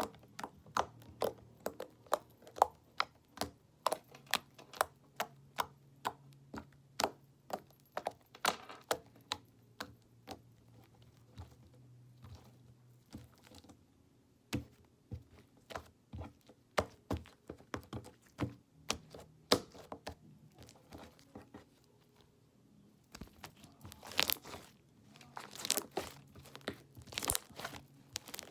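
Homemade slime being squeezed and pulled by hand, giving a string of sharp pops and clicks, a few each second, with a denser crackling run near the end.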